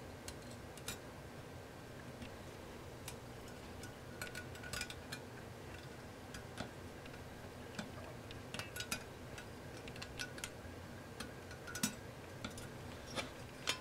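Faint, irregular small metallic clicks and ticks as a spring and small steel parts are worked by hand into the metal clamp housing of a Delta Unisaw Jet Lock rip fence.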